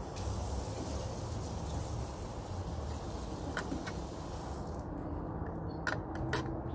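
Steady outdoor background rumble with a high hiss that stops about two-thirds of the way through, then a few light clicks and taps as a metal paint can and foam brush are handled.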